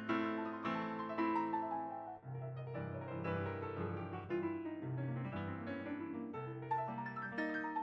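Steinway S 155 baby grand piano being played: a slow melody over held chords and bass notes, with a brief break in the sound a little over two seconds in.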